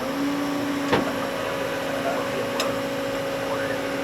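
Heavy machine's engine running at a steady pitch just after rising in revs, with a sharp click about a second in.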